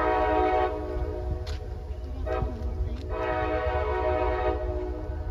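Diesel locomotive air horn on the approaching CapeFlyer passenger train, sounding a chord of several tones. A long blast ends about a second in, a short blast comes at about two seconds, and another long blast runs from about three to four and a half seconds, over a low rumble.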